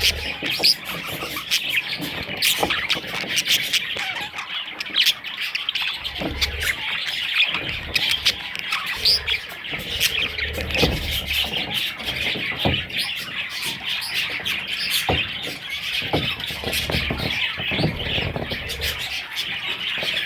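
A flock of budgerigars chattering and chirping steadily, a dense warble of many birds with sharp short calls over it.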